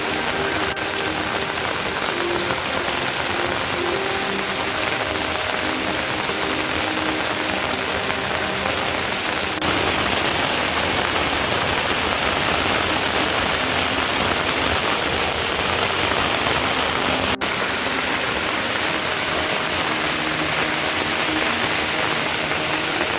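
Steady rain falling, an even hiss of many drops that gets slightly louder about ten seconds in.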